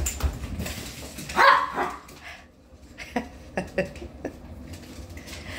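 A small Shih Tzu barks about a second and a half in. There is a thump at the start and a few light knocks and clicks later as the dog pushes a soccer ball across the wooden floor.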